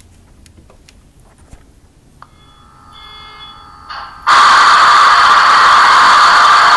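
Tsunami sound decoder in a model CN SD70M-2 diesel locomotive playing its sounds through a small speaker: a click and a few faint steady tones, then, about four seconds in, a sudden loud, harsh buzzing noise that holds steady.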